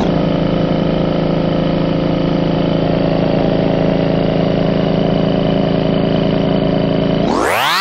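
Steady electric motor whine of an air compressor, slowed and pitched down into a low, even hum with many overtones. It drops sharply in pitch at the start and sweeps back up to a high whine near the end.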